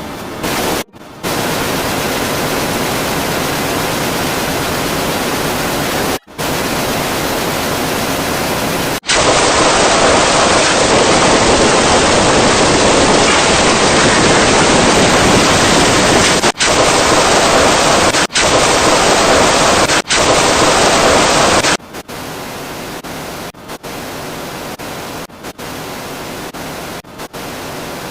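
Loud static-like hiss, a noise sound effect, cut into blocks that switch abruptly: a louder, duller stretch starts about nine seconds in and stops around twenty-two seconds, after which the hiss is quieter and keeps dropping out for split seconds.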